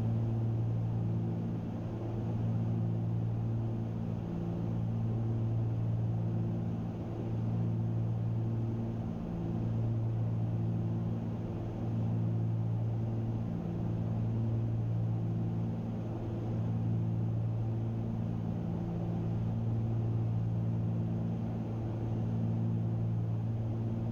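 Twin engines and propellers of a Cessna 310Q droning steadily in cruise, heard inside the cabin, with a slow, regular swelling and fading about every two to three seconds.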